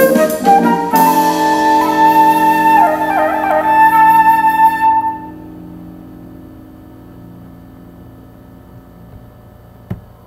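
Silver concert flute playing a baião melody over lower sustained accompaniment, ending on a long held note with a quick ornament about three seconds in. The music stops about five seconds in, leaving faint hiss and a single click near the end.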